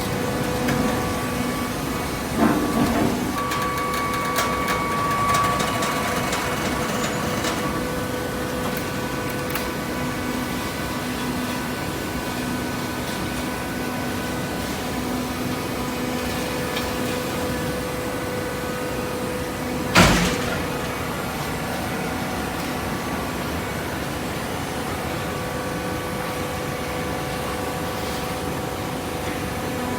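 Hydraulic baler running with a steady motor and pump hum, with some clattering early on and one sharp bang about two-thirds of the way through.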